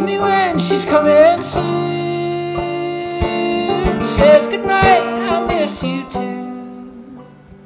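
Live folk duo: acoustic guitar picking under two male voices singing in close harmony, the singing dying away near the end.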